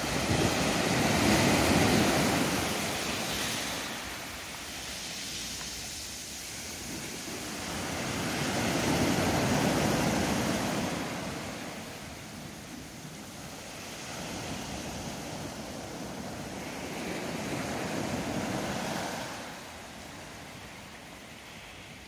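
Small sea waves breaking and washing up a sandy beach. The surf swells and fades three times, about eight seconds apart.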